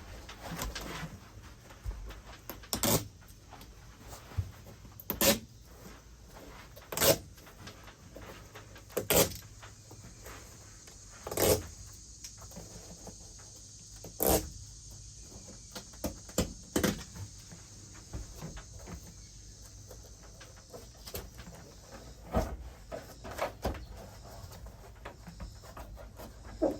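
Work noise from fitting adhesive-backed Bedrug liner pieces into a pickup bed: sharp knocks about every two seconds for the first half, then softer scattered clicks and handling sounds.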